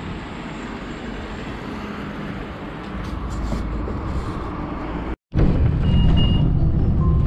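Street traffic noise at a roadside bus stop, slowly growing louder. After a sudden cut, the louder low rumble of a city bus heard from inside the cabin while it moves, with a short high beep about six seconds in.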